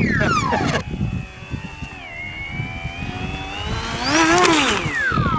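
Radio-controlled model aircraft's motor and propeller whine. The pitch drops steeply in the first second, holds lower and nearly steady, then rises and falls again about four and a half seconds in.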